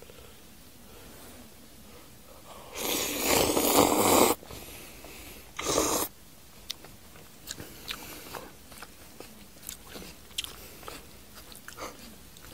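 Person slurping instant black-bean noodles: one long loud slurp about three seconds in and a short one just before six seconds, followed by light, wet chewing and lip-smacking clicks.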